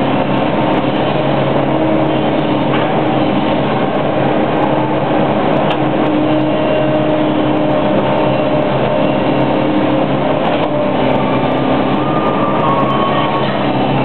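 Hydraulic excavator's diesel engine running hard with a steady hydraulic whine that shifts a little in pitch as the bucket works a steel trench shoring box, with a few light knocks.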